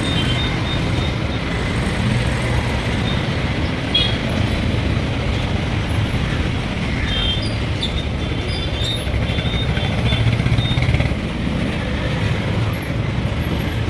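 Steady road traffic and motor vehicle engine noise, a continuous low rumble.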